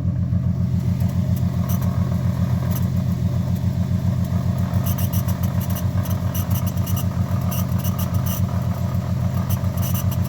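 2015 Ford Mustang's 3.7-litre V6 running, with a light, fast tapping that comes in now and then at first and then goes steadily, several taps a second, from about halfway in. The tapping is the weird tap the owner is chasing: it seems to come from the driver's side of the engine bay, and forum suggestions include the injectors.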